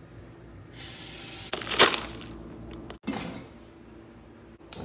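Water from a kitchen tap running into a stainless steel pot in the sink for about two seconds, with a sharp clank of the pot about halfway through.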